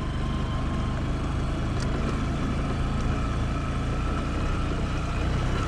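A road vehicle's engine running steadily, a continuous low rumble with road noise.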